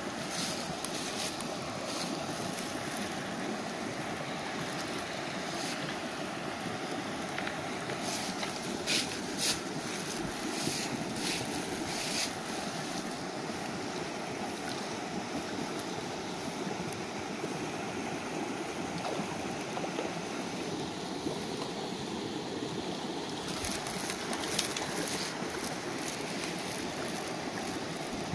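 Small shallow stream running over rocks in a steady rush of water, with a few brief clicks and rustles now and then.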